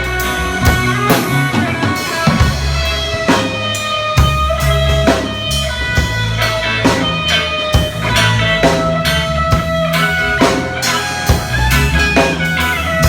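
A band playing instrumental music: drum kit with bass drum and rimshots keeping a steady beat under guitar and bass lines.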